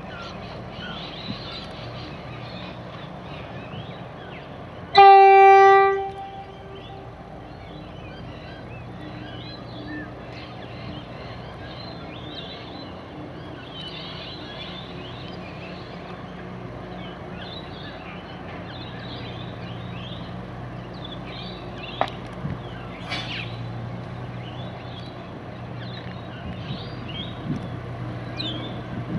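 A train horn sounds one steady-pitched blast lasting about a second, about five seconds in. Under it runs a low steady hum, with birds chirping.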